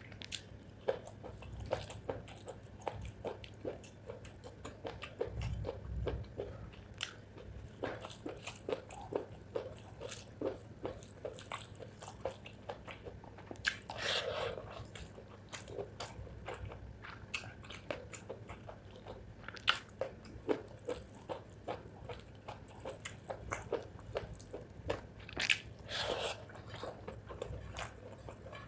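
Close-miked chewing of spicy chicken gizzard with rice: a run of wet, smacking bites and crunches a few times a second, with two louder, longer noisy moments midway and near the end.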